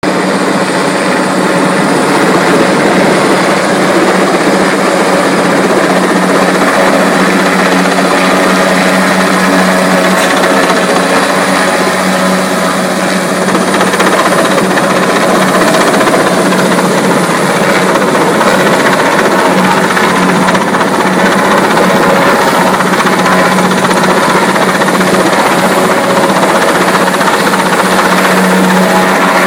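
Helicopter running close by, loud and steady.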